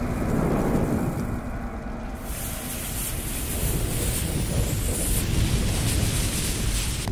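Logo-intro sound effects of a lit bomb fuse: a low rumble, with a hissing, sizzling fuse joining in about two seconds in, building toward an explosion near the end.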